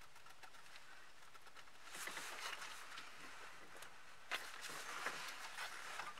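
Handling noise of a car radio's plastic wiring-harness connector and loose wires being pushed into the back of a head unit: soft rustling with small plastic clicks, starting about two seconds in, with a couple of sharper clicks near the end.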